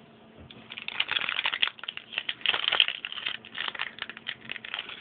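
Crinkly plastic-foil booster pack wrapper being handled and torn open, a dense run of crackling for a couple of seconds, then sparser crinkles.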